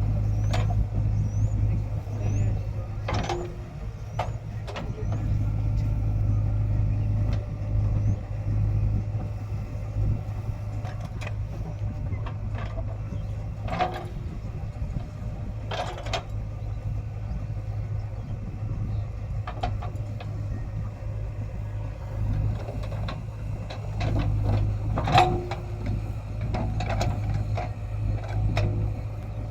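JCB 3DX backhoe loader's diesel engine running steadily, with occasional sharp knocks and clanks as it works loading soil into a dumper truck.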